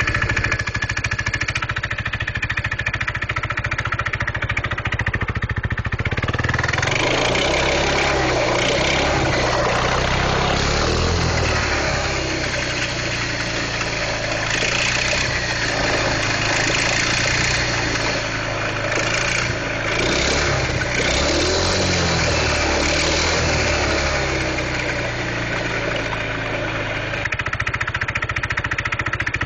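A Jonway 244cc scooter's single-cylinder four-stroke engine idling, then revved up and down several times from about six seconds in before settling back to idle near the end. It makes an odd note like an exhaust leak, which the owner wonders may be a blown-out muffler baffle.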